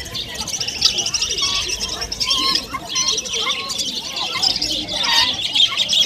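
Many caged small birds chirping and twittering at once: a continuous high chatter of overlapping calls.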